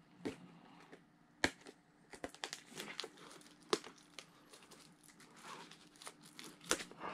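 Packaging being torn open and crinkled by hand, with the wrapping coming off a Blu-ray steelbook. There are scattered crackles and a few sharp clicks, busiest from about two seconds in.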